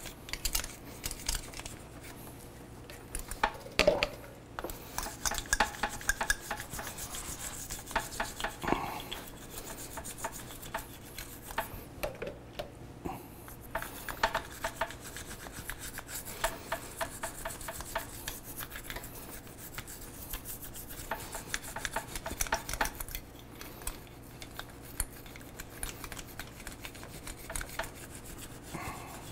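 Small brush scrubbing a soapy four-piston motorcycle brake caliper: quick rasping strokes in spells, with a couple of light knocks on the metal.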